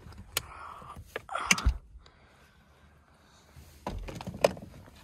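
Rustling, scraping and sharp knocks as a person and a dog climb into a pickup truck's cab, with a heavy thump about a second and a half in and another bout of rustling and clicks near the end.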